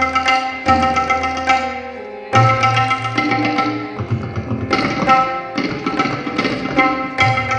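Tabla solo: rapid strokes on the right-hand drum and deep resonant bass strokes on the left-hand bayan, over a steady, repeating sitar-like melodic accompaniment. The bass strokes drop out briefly about two seconds in.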